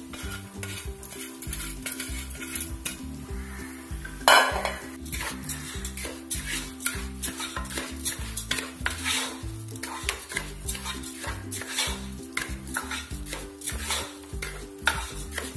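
A spatula scraping and stirring raw rice being fried in hot oil with onion and spices in a non-stick pan: repeated scraping strokes over a light sizzle, with one louder clatter about four seconds in.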